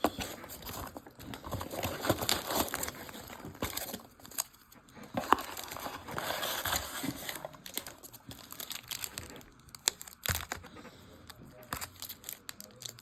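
Packaging from a box of baseball trading cards crinkling and tearing as it is handled and opened, in an irregular run of rustles and sharp clicks that is busiest in the first half.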